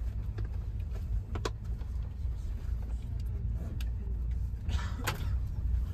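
Cabin noise of a moving bus: a steady low engine and road rumble, with a sharp click about a second and a half in and a louder rattle or knock near five seconds.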